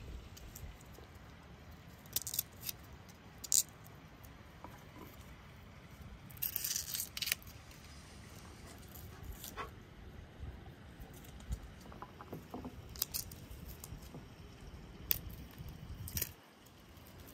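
Garlic cloves being peeled with a small knife: scattered crisp clicks and crackles from the papery skins and the blade, over a steady low rumble.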